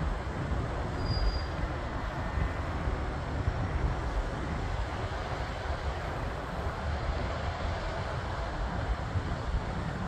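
Wind buffeting the microphone in gusts over the steady noise of cars driving past on the road.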